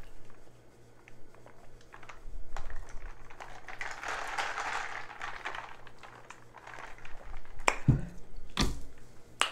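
Soft sipping and breathing while drinking from a plastic straw tumbler, then two sharp knocks near the end as the tumbler is set down on the table.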